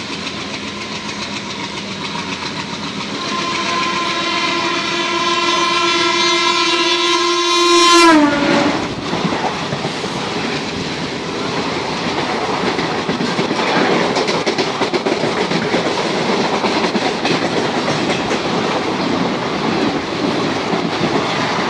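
Horn of a train crossing at speed on the next track. It is held for about five seconds, then drops sharply in pitch as the locomotive passes alongside. Then the loud rushing rattle of its coaches going by close alongside, lasting over ten seconds, over the running noise of the train being ridden.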